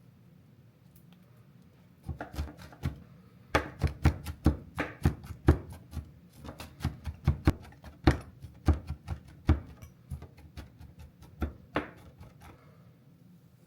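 A knife chopping on a cutting board: a run of quick, regular strokes, about two to three a second, starting a couple of seconds in and stopping near the end.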